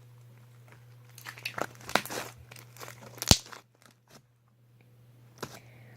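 Fluffy slime being squished and stretched by hand close to the microphone, giving a run of crackly, crinkling noises, with one sharp click a little over three seconds in and a softer one near the end.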